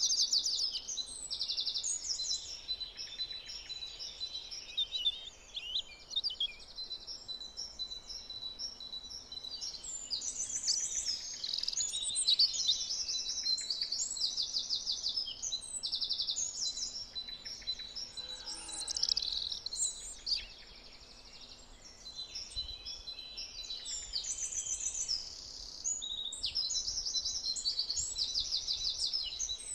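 Several songbirds singing and calling over one another in rapid trilled and warbled phrases, with a thin, steady high tone running underneath. The singing eases briefly about two-thirds of the way through, then picks up again.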